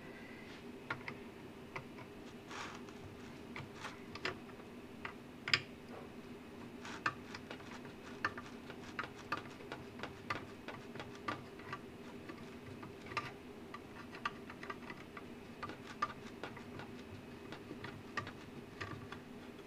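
Light, irregular clicks and ticks of a screwdriver working a corner screw out of a metal charger chassis, over a faint steady hum.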